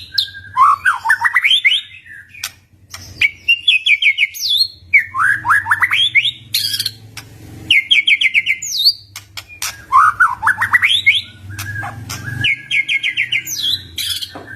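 White-rumped shama singing: repeated phrases of rising whistled notes, each running into a quick series of sharp, evenly spaced notes, with short clicking calls between the phrases.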